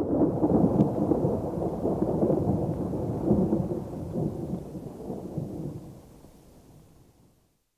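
Rolling thunder: a low rumble that starts suddenly and fades out over about seven seconds.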